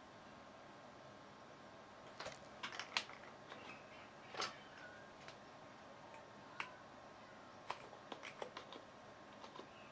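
Computer keyboard keys pressed in irregular clicks, some single and some in quick clusters, over a faint steady hum.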